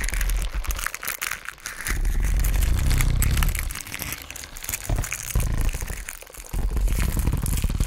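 Dense, close-up crackling and crinkling of skin being rubbed and pressed, with a deep rumble underneath that drops away about a second in and again through the middle, then returns near the end.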